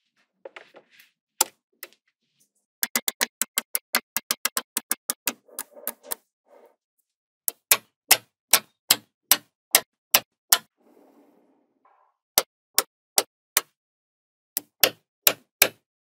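Small magnetic balls clicking sharply as they snap onto a block of other magnetic balls, one after another. First a quick run of about four to five clicks a second, then slower single clicks a little under half a second apart, with faint rustling in the pauses.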